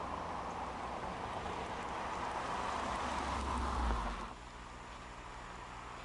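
Red 2009 Ford Focus coupe driving by, heard mostly as steady tyre and road noise with a low rumble that swells about 3.5 s in. The sound drops away sharply about 4 s in, leaving a quieter steady hiss.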